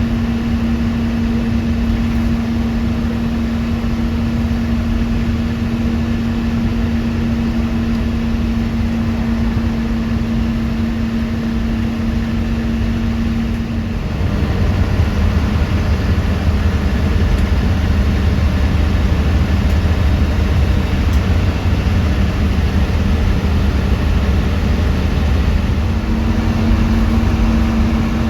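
Moving bus's engine and road noise heard inside the passenger cabin: a steady engine hum over a low rumble. About halfway through, the engine note shifts and the low rumble grows louder; the earlier hum returns near the end.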